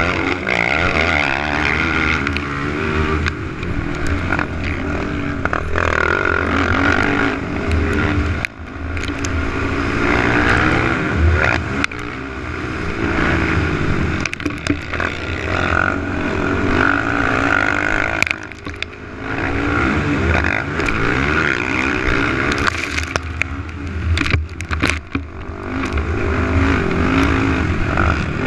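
Onboard sound of a 450cc single-cylinder four-stroke race ATV engine, revving up and down as the throttle opens and shuts around the dirt track. It drops off briefly a few times when the throttle is shut.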